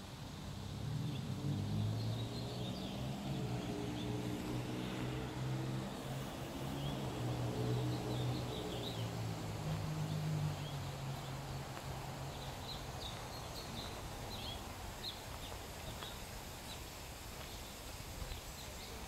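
Small birds chirping now and then over outdoor background noise, with a low droning hum that fades away about two-thirds of the way through.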